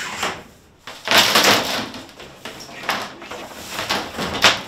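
Plastic PEX water tubing being pulled through holes drilled in wall framing, rubbing and scraping in uneven pulls: a long scrape about a second in, then shorter ones near the end.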